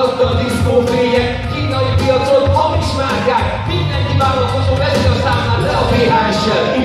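Live hip-hop: a backing track with a steady beat over PA speakers, with a male voice rapping over it.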